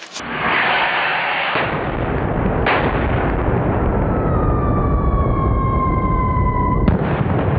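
Large ground firework going off in a dense, continuous barrage of crackling bangs, with a sharp crack about three seconds in. A whistle falling in pitch joins from about four seconds in and ends with a sharp bang near the end.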